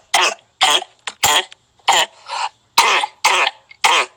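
A person coughing in a fit: a rapid run of about ten short, harsh coughs, two or three a second.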